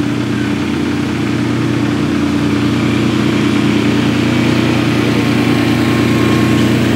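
Small miniature-railway locomotive's internal-combustion engine running steadily at an even pitch.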